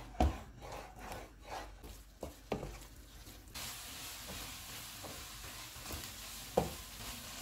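Wooden spatula stirring and scraping scrambled eggs around a nonstick pan, with a few sharp knocks of the spatula against the pan. From about three and a half seconds in, the eggs sizzle steadily as they fry.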